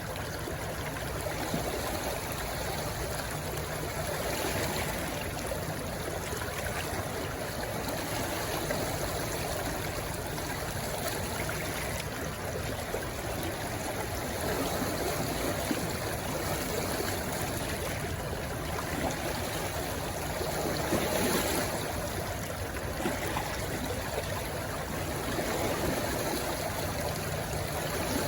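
A small rushing stream running steadily over stones, with gentle swells in loudness every several seconds that may be waves where it meets the sea.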